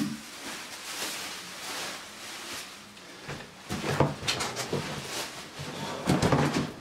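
Cardboard and foam wrap rustling and scraping as a boxed car wheel is lifted out of its box, with a few knocks, the sharpest about four seconds in.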